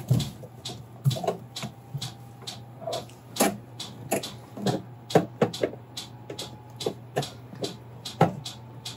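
Irregular clicks and light knocks of small 3D-printed plastic parts being handled and pressed into place against the metal of a mini lathe, about one or two a second, over a low steady hum.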